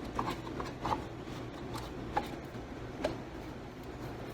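A spoon or spatula scraping the last of the condensed milk out of its can, with a few light clicks of metal on the can.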